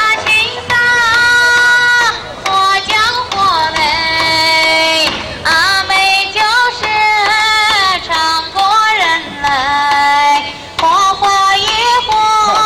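A high voice singing a melody over music, with long held notes that waver and slide between phrases.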